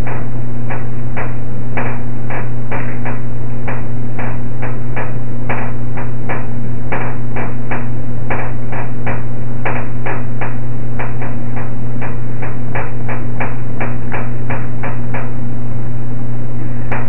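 Fingers tapping on a stone kitchen countertop in an even rhythm of about three taps a second, stopping about two seconds before the end, over a loud steady low hum.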